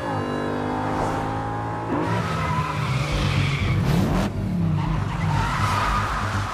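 Car engines revving hard and tyres squealing as cars skid and drift, in a film car-chase sound mix. The engine note drops at the start, rises and falls about four seconds in, and the squeal returns near the end.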